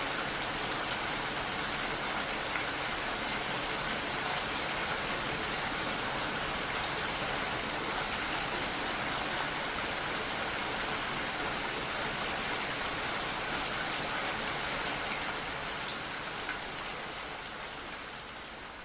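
Steady rain falling, an even hiss of drops, fading out over the last few seconds.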